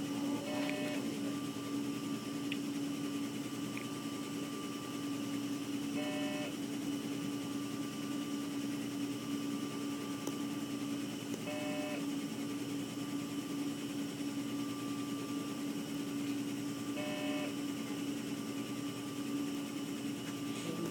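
Steady electrical hum of neonatal intensive-care equipment around an incubator. A short cluster of electronic beeps from a medical monitor repeats about every five and a half seconds, four times.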